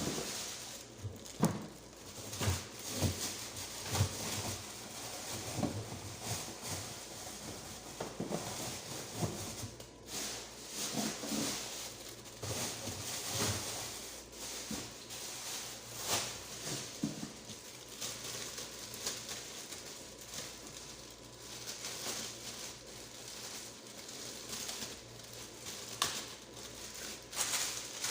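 Irregular knocks, clicks and rustling of plastic as containers and vegetables are handled and put into a fridge.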